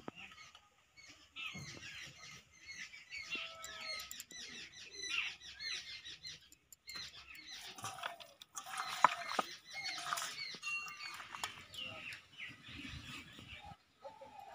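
Small birds chirping over and over in short, quick calls, with a few soft clicks and knocks a little past the middle.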